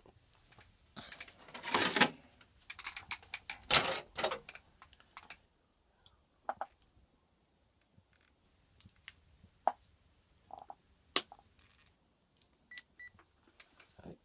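Clicking and rattling of small hard parts being handled, with two louder knocks in the first few seconds, then scattered single clicks; a faint steady high tone runs underneath.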